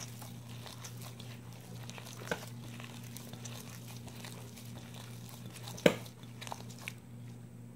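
Hand mixing and squeezing crumbly flour dough in a glass bowl: a dry, crackling rustle with small clicks, a sharp knock about two seconds in and a louder one near six seconds. A steady low hum runs underneath.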